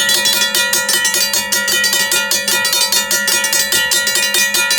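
Two mechanical railroad crossing bells, a Safetran and a Raco, ringing together: rapid, even hammer strikes on the gongs, their held tones overlapping.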